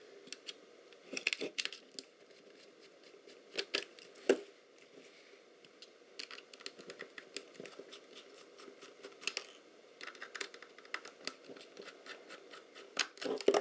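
Small screwdriver clicking and scraping in screws on a Lomo LC-A film camera's body, with hands handling the camera: scattered, irregular light clicks, a few louder ones about a second in, around four seconds and near the end.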